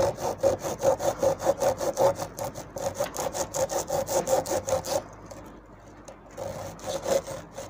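Hacksaw blade cutting through the copper winding of a ceiling fan's stator coil in quick back-and-forth strokes, several a second. The strokes pause about five seconds in and start again a second and a half later.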